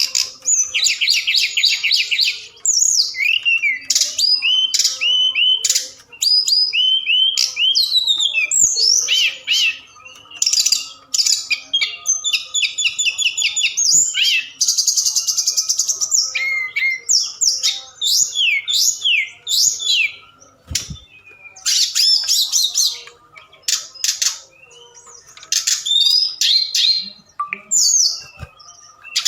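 Tledekan gunung bird singing a long, varied song of fast trills, sweeping whistled notes and chattering phrases with brief pauses, played as a lure call to set other birds singing.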